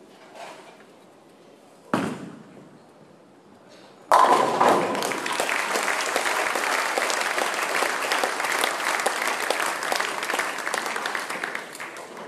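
A bowling ball thuds onto the lane about two seconds in. About two seconds later the pins crash down in a strike, and the crowd breaks into loud applause that fades near the end.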